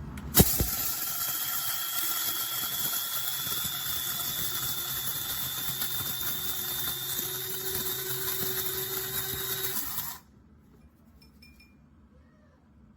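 Kaffe One-Touch electric blade coffee grinder grinding a batch of coffee beans. It starts with a sharp click, runs with a steady high whine whose pitch creeps up slightly, and cuts off abruptly after about ten seconds.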